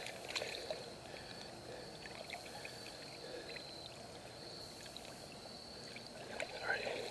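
Pond water splashing and trickling around a large largemouth bass held in the water and let go. Small splashes and drips come about half a second in, then light trickling, then a stronger slosh near the end.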